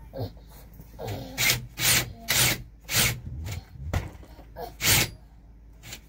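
A run of short, loud scraping strokes on wood, about two a second. They start about a second in and stop near the five-second mark.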